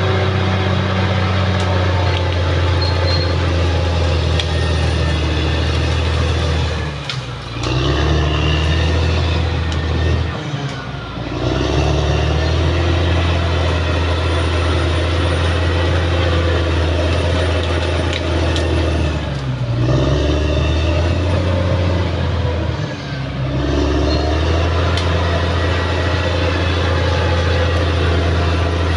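Caterpillar D6R XL bulldozer's diesel engine running hard, a loud steady low drone. Its pitch sags and climbs back up four times, about a quarter of the way in, a third in, two-thirds in and three-quarters in.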